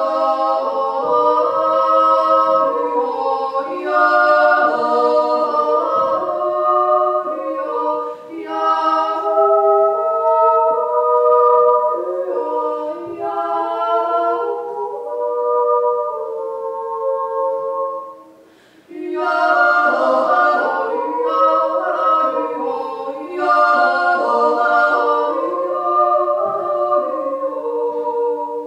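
Two women singing a duet in two-part harmony, unaccompanied, with a short break between phrases about two-thirds of the way through.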